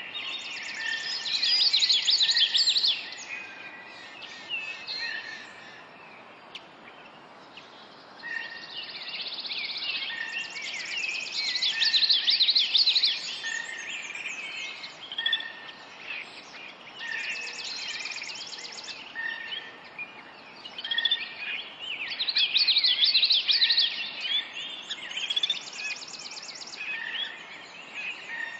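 Several birds chirping and trilling, with a loud flurry of rapid calls every five or six seconds, over a steady faint background hiss.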